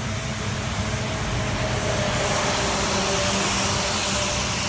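A vehicle running, heard as a steady engine hum under a rushing hiss that swells about two seconds in and eases a little near the end.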